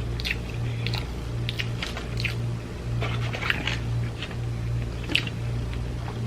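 Close mouth sounds of a person biting and chewing fried chicken: many short wet smacks and crisp clicks, over a low, regularly pulsing hum.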